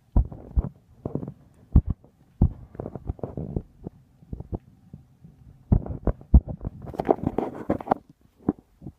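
Irregular low thumps and rumbles against the camera's microphone, with a short stretch of rustling hiss about seven seconds in.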